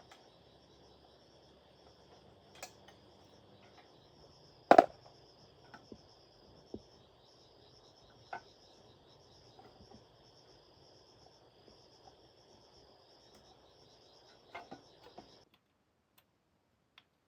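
Insects chirring steadily in two high, finely pulsing bands, with scattered sharp knocks; one knock about five seconds in is much louder than the rest. Both stop abruptly about fifteen seconds in.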